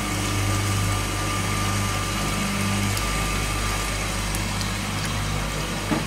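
Hoover top-loading washing machine draining after the wash: its drain pump hums steadily while the water runs out of the hose into a sink.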